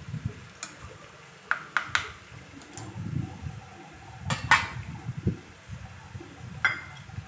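Spoon scraping and clinking against a steel pan and a stainless steel bowl while thick semolina kesari is scooped out and served: a scatter of light clinks and scrapes, the loudest about four and a half seconds in.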